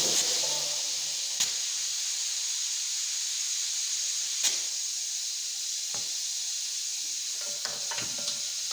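Compressed air hissing steadily, with a few sharp clicks, two of them about one and a half and four and a half seconds in.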